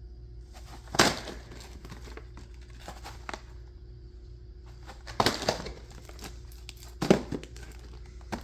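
Firework packages being picked up and handled, their wrapping crinkling and rustling, loudest in three short spells: about a second in, around five seconds in and about seven seconds in. A steady low hum runs underneath.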